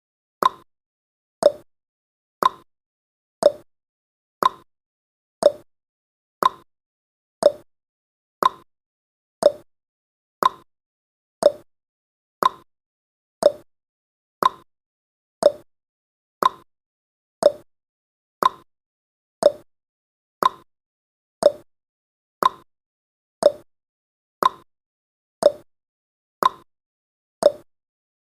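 Countdown timer's tick sound effect: a short, plop-like click once every second, each dying away quickly, in a steady even beat.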